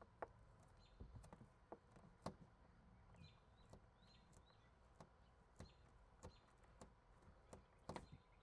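Faint, irregular clicks and light taps of a tool picking and scraping old double-sided mounting tape off the car's rear window glass.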